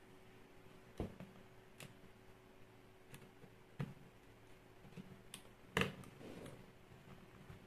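Small screwdriver clicking and scraping against a plastic headlamp housing: a few light, irregularly spaced clicks, with a sharper one about three-quarters of the way through.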